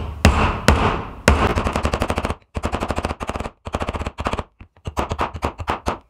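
Hammer striking the end of a half-inch copper pipe to flatten it shut: a few separate heavy blows at first, then quick runs of many sharp taps.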